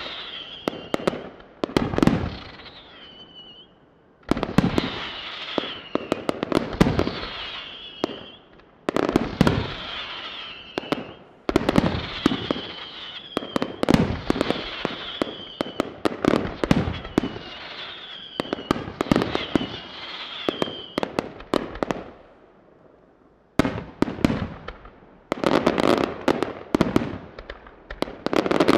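Aerial firework shells bursting in quick volleys: sharp bangs and crackling, with high whistles that waver and fall in pitch. There are brief lulls about four seconds in and again around twenty-two seconds.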